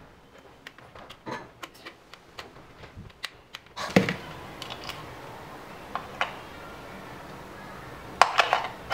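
Plastic clicks and knocks from a clamp meter's case being handled, with a louder knock about four seconds in and a quick cluster of clicks near the end as a 9-volt battery is fitted into its battery compartment.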